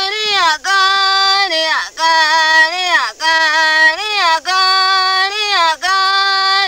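A single high voice singing unaccompanied, repeating short phrases of about a second each, every one held on a note and then falling at the end, with brief breaks between.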